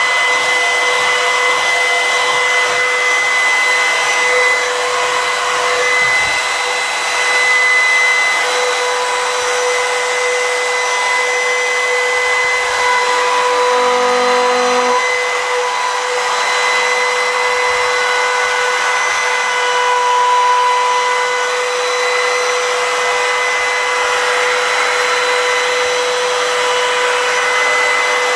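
Compact trim router running at full speed in a router sled, its bit skimming the face of a wood slab to flatten it. A loud, steady high whine over the rushing noise of the cut.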